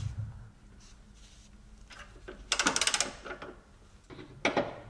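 Socket ratchet clicking in a fast run about halfway through and again briefly near the end, as it spins a 16 mm nut off the long stud of an engine mount.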